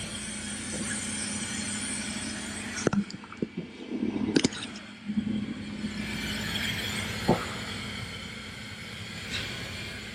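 Semi-truck diesel engine idling steadily, with a hiss that cuts off abruptly about three seconds in and a few short knocks.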